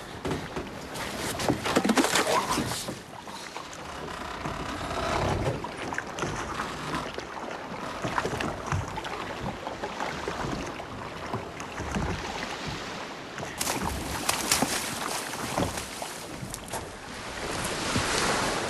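Sea and wind ambience under knocks, scrapes and rattles of clay pots and ship's gear being rummaged through by hand.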